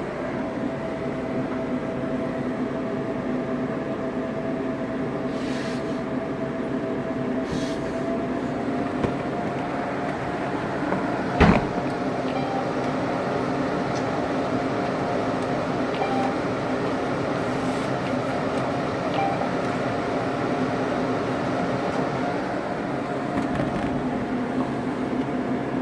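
Steady mechanical hum with two held tones over a noisy drone, broken by one sharp click about 11 seconds in and a few faint ticks.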